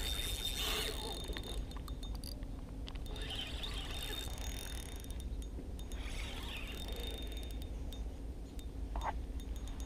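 Spinning reel cranked under the load of a hooked fish: a faint mechanical whir with fine clicking from the reel's gears, and a faint high tone that comes and goes.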